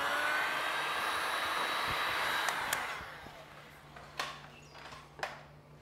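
Handheld electric heat gun blowing steadily, warming vinyl wrap film, then shutting off and fading out about three seconds in. A couple of light knocks follow.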